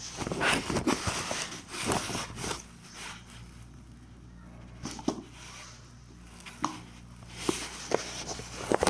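Unboxing sounds from handling a phone's packaging: rustling and scraping of cardboard and paper for the first couple of seconds, then a few sharp clicks and taps.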